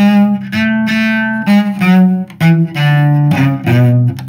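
Solo cello playing an A major scale pattern in a lilting 6/8 hooked-bow rhythm, longer and short staccato notes alternating and the pitch changing with the rhythm.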